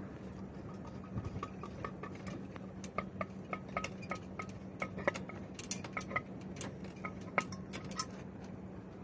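Irregular light metallic clicks and clinks from the threaded chrome pop-up waste body turning by hand against the basin fitting. They begin about a second in, come thickest in the middle, and stop about a second before the end.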